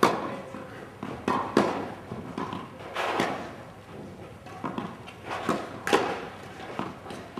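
Tennis rally: the ball struck by rackets and bouncing on the court, sharp knocks with the loudest about every second and a half and lighter taps between.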